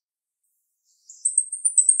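Female jalak rio-rio myna singing: after a second of silence, a quick run of sharp, high-pitched chirping notes starts about a second in.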